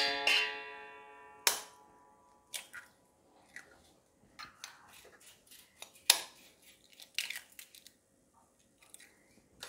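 Eggs being knocked and cracked against the rim of a small stainless steel bowl. A sharp knock at the start sets the bowl ringing for over a second, a second knock follows, then scattered lighter taps and clicks of shells breaking.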